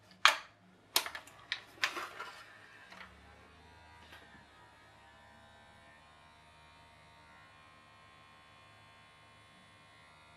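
Sharp crinkles and knocks of an aluminium foil takeaway tray being handled and set down in sink water, then a faint steady buzz from about three seconds in: a children's electric toothbrush vibrating inside the floating tray to propel it, its noise turned right down.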